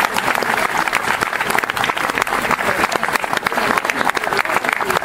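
A crowd applauding, the dense clapping of many hands.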